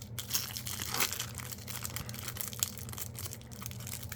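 Foil wrapper of a trading card booster pack crinkling and tearing as it is opened by hand: a rapid, irregular run of crackles.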